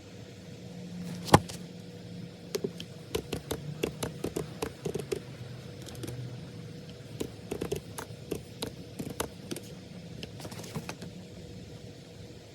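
Irregular small clicks and taps of someone working at a desk, with one sharper click about a second in and a busier run of taps through the middle, over a steady low hum.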